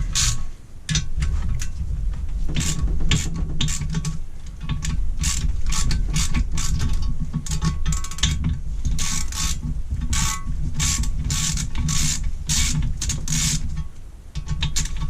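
Ratchet wrench clicking in repeated back-and-forth strokes as bolts are undone on an old engine, with short metal clicks coming irregularly.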